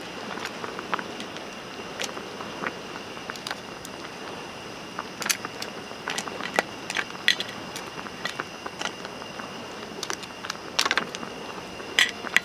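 Hot pot of broth heating on a camp stove: irregular small pops and crackles over a steady hiss.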